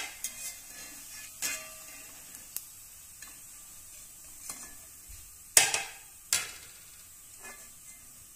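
A perforated steel skimmer clinking and scraping against an aluminium kadai as it scoops a nest of fried sev out of the hot oil, over a faint sizzle of the oil. The knocks come irregularly, the loudest two about five and a half and six seconds in.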